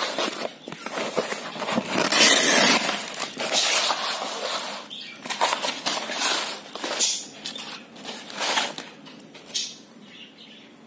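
Painted canvas being ripped by hand: a quick, irregular run of tearing and flapping rips, loudest about two seconds in and thinning out near the end.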